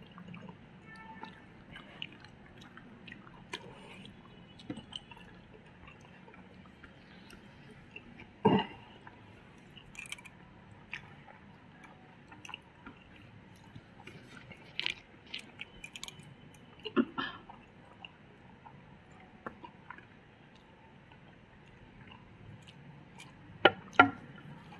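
Close-up chewing and mouth sounds of people eating rice and curry with their fingers, with soft clicks and smacks throughout. A few louder sharp sounds stand out, the loudest a pair in quick succession near the end.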